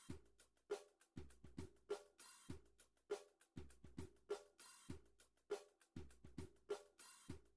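Quiet background music with a steady drum beat: regular low kick-drum thumps and bright snare and cymbal hits.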